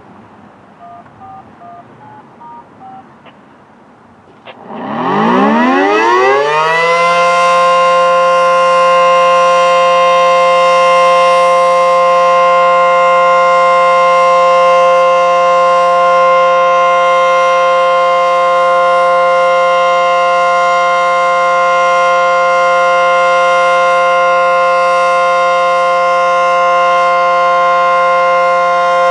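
A few faint short beeps, then an ACA Screamer S-10 dual-tone tornado warning siren winds up, its wail rising in pitch for about two seconds before it settles into a loud, steady two-tone chord: a scheduled siren test.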